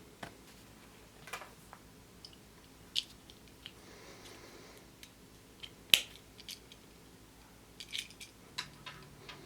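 Scattered small clicks and crinkles of hands handling Kinder Surprise plastic capsules, wrappers and toy parts, with one sharp click about six seconds in and a cluster of clicks near the end.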